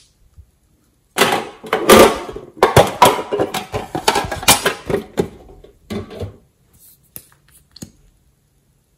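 Clattering and rattling of a small metal tin case being handled, with loose items knocking about inside, from about a second in until past the middle; a few lighter clicks follow near the end.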